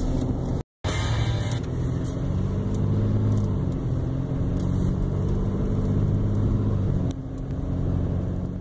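Steady low rumble of a motor vehicle's engine running, cutting out completely for a moment just under a second in.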